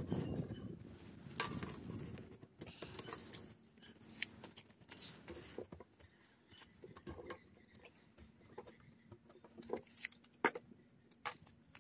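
Scattered light clicks and taps, like small hardware or tools being handled, with a faint steady hum underneath. A louder rustling comes in the first two seconds.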